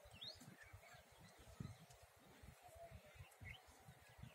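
Near silence: a faint low rumble with a few brief, faint bird chirps.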